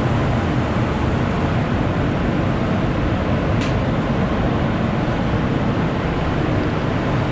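Spray booth's air fans running: a steady, loud rush of air.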